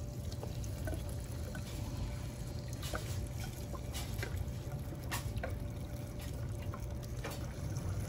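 Two-stroke fuel mix pouring from a gas can's spout into a string trimmer's plastic fuel tank, a steady trickle with small scattered ticks.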